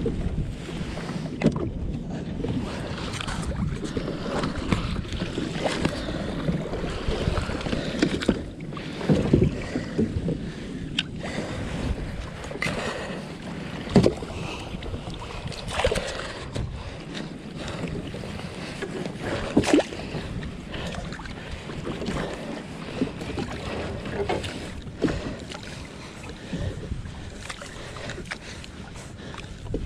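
Water lapping and sloshing around a kayak, with wind on the microphone and scattered knocks and clatters on the hull every few seconds.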